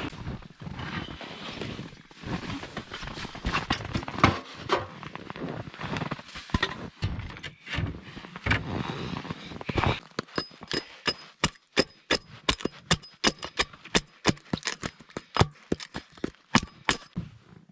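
Repeated sharp knocks: a jumble of knocks and rustling at first, then, about ten seconds in, a regular run of hard knocks about two to three a second, each with a faint high ring.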